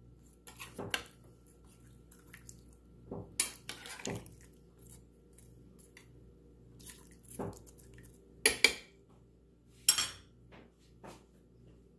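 Metal spoon clinking and scraping against a ceramic slow-cooker crock while spooning broth over a pot roast, a sharp clink every second or two. Near the end the spoon is set down in a small glass bowl with a louder clink.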